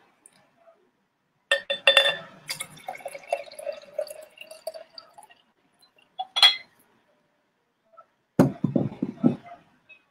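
Clinking of glass or dishware: a few clinks about a second and a half in that ring on and fade over a few seconds, a single sharper clink later, and a short cluster of low knocks near the end.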